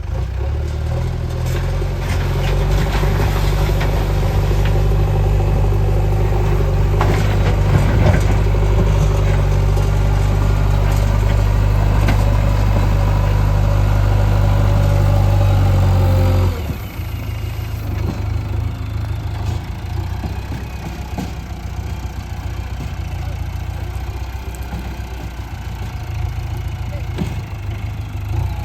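JCB 3DX backhoe loader's diesel engine running hard under load, then dropping abruptly to a lower, steadier running speed about sixteen seconds in, with occasional knocks.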